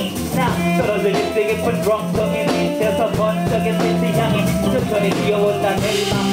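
Live band playing a blues number on electric guitars and drums.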